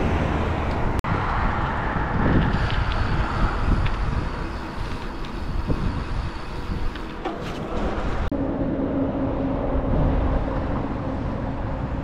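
Riding noise on the move: a steady rush of wind over the microphone with low rumble, broken sharply twice. In the last few seconds a steady low hum joins it.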